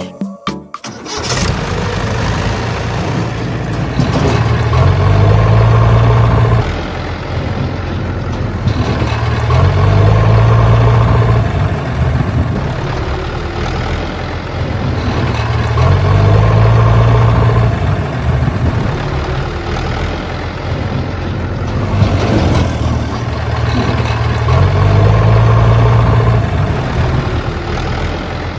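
A motor running continuously, swelling louder with a deeper hum in a repeating cycle about every six seconds.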